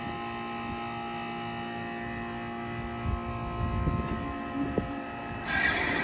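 1995 Bard 3-ton wall-hung heat pump in its defrost cycle: a steady compressor hum with a few light knocks, then about five and a half seconds in a sudden loud rushing hiss as the unit switches over.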